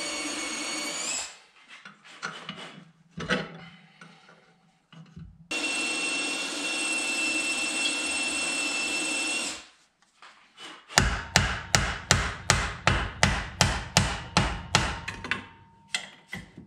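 A motorised shop tool runs in two steady whining spells, then someone strikes metal with a hammer in a rapid run of about fifteen sharp blows, roughly four a second.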